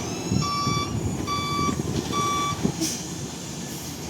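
Electronic reversing-alarm beeps, three evenly spaced single tones a little under a second apart, stopping about two and a half seconds in, over a steady low noise.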